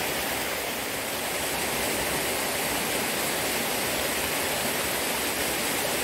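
Small waterfall pouring over rock into a pool: a steady, even rush of falling water.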